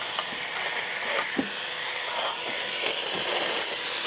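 SeeSii 6-inch cordless mini chainsaw, battery electric, running steadily as its chain cuts small shoots off a tree trunk, with a few short clicks from the cutting.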